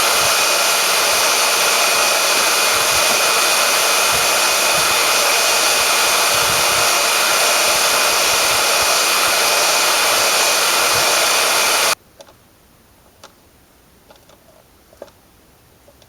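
Hand-held hair dryer running with a steady rush of air and a faint whine, heating a rusted-in screw; it shuts off suddenly about twelve seconds in, leaving a few faint clicks.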